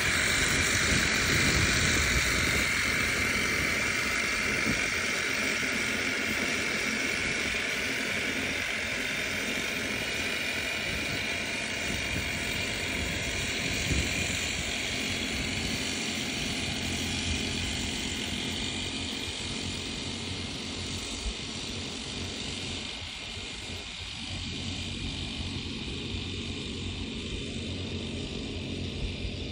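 Steady drone of the small engines on motorized backpack sprayers, spraying mist over young corn; the sound slowly grows fainter.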